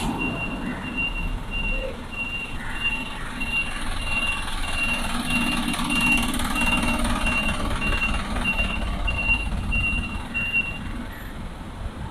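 Vehicle reversing alarm beeping steadily at about two beeps a second, stopping near the end, over low traffic rumble.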